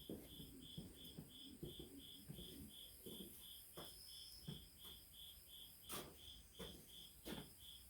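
Faint, steady insect chirping, about three even chirps a second at one high pitch, with a few faint clicks of tools being handled, the sharpest about six seconds in.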